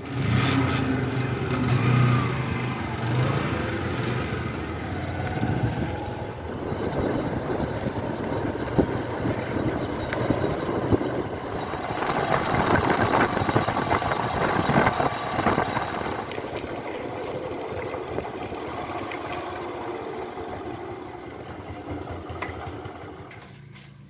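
Motorcycle engine running, getting louder in the middle and easing off toward the end.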